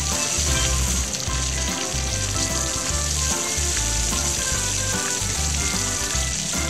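Garden hose spray nozzle hissing steadily as it sprays water onto a plastic toy jeep, over background music with a pulsing bass beat.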